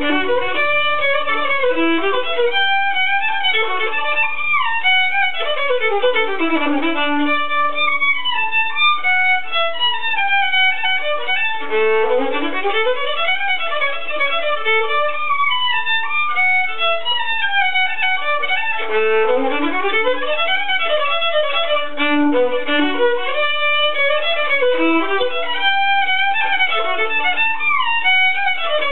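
Solo violin playing a Hungarian verbunkos melody, with quick scale runs sweeping up and down several times.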